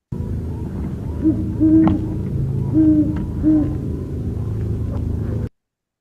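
A recording of a great horned owl hooting: four deep hoots, the second the longest. Underneath runs a steady low rumble, which the presenter thinks may be an airplane passing overhead. The recording cuts off suddenly near the end.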